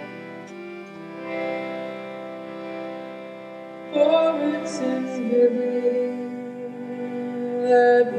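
Devotional song: soft accompaniment of held notes, then a woman's voice begins singing a line about four seconds in, and the music grows louder.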